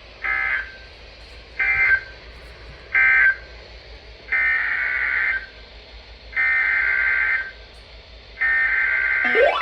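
Emergency Alert System SAME data bursts, the buzzy warble of digital tones. First come three short end-of-message bursts closing the previous alert. Then three longer header bursts open the next alert, and a gliding tone starts up just as the last one ends.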